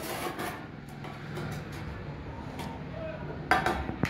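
Steel brick trowel scraping wet cement mortar over fired bricks, with a few sharp knocks near the end.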